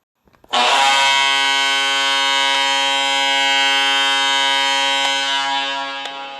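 Columbus Blue Jackets' arena goal horn sounding one long steady blast. It starts about half a second in and fades away near the end.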